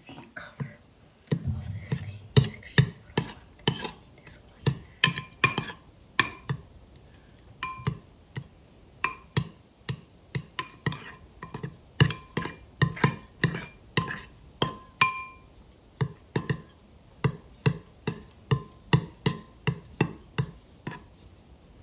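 Metal spoon stirring a thick, creamy mixture in a glass bowl: a steady run of sharp clinks, about two or three a second, each with a brief bell-like ring from the glass.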